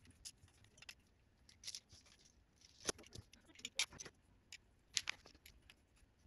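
Faint, irregular clicks and small scrapes of a screwdriver driving small screws into a plastic bracket while mounting a magnetic DRO sensor, with the bracket and its cable handled.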